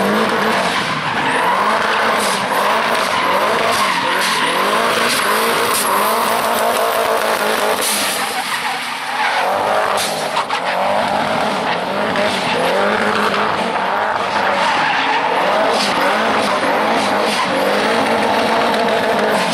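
Small custom hot rod's engine revving hard, its pitch rising and falling over and over as the car drifts, with tyres squealing and skidding on tarmac. The revs ease briefly about halfway through, then pick up again.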